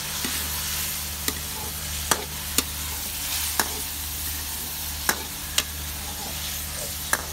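Chopped onions frying in oil in a pot, a steady sizzle, with about seven sharp, irregular clicks and knocks of kitchen utensils over it.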